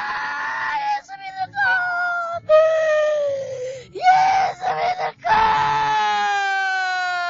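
A person wailing without words: a string of drawn-out, high cries that fall in pitch, broken by short gasps, the last one held for nearly three seconds.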